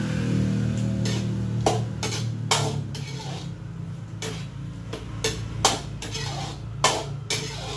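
Metal ladle knocking and scraping against a metal wok while a pan of pork in sauce is stirred: about ten sharp clinks at irregular intervals, over steady background music.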